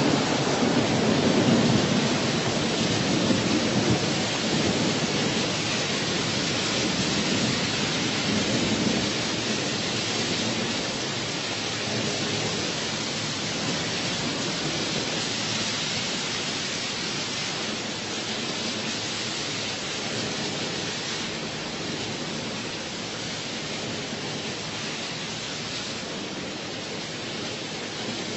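Rain and thunder sound effect: a steady hiss of heavy rain with a low rumble of thunder in the first few seconds, slowly fading.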